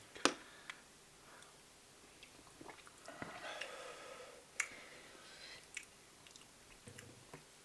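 Quiet chewing and mouth noises of a person eating a big teaspoon of shrimp chili oil, with a few sharp clicks along the way.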